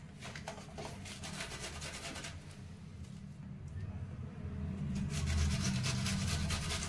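Red onion being grated on a metal box grater: quick repeated rasping strokes that pause near the middle and then resume louder.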